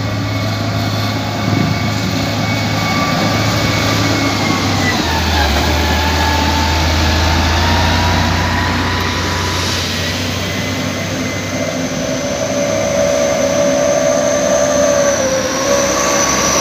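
Heavy diesel engine of a motor grader running as it drives past close by: a steady low drone that drops in pitch about five seconds in and fades about twelve seconds in. After that a higher steady whine comes in over the engine noise.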